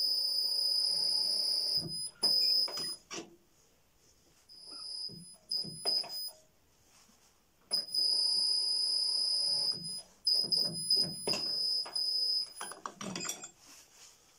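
Uzor-N1 cold-forging machine bending a steel bar around its scroll die, the metal giving a high-pitched squeal as it is worked, in two long squeals with short chirps and clunks between them.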